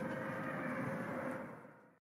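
Chorus of many wolves howling together, long notes held at a few pitches over one another. The chorus fades out in the last half second.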